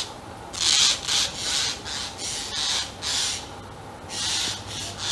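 A bird giving a rapid run of harsh, rasping calls, about two to three a second.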